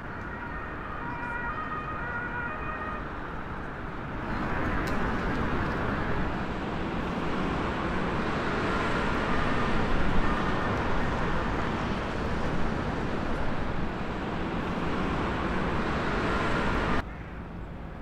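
City road traffic noise with a distant emergency-vehicle siren in the first few seconds. The traffic noise grows louder about four seconds in and cuts off suddenly near the end.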